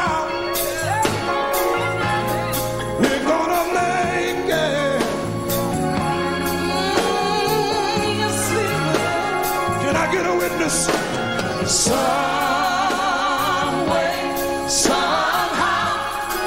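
Live gospel music: a large choir singing with a band, drums and cymbals striking on the beat.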